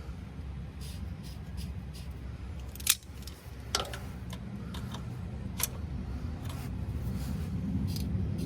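Metal hand tools clicking and clinking while the car is being worked on, with sharp clicks about three seconds, four seconds and five and a half seconds in, over a steady low rumble.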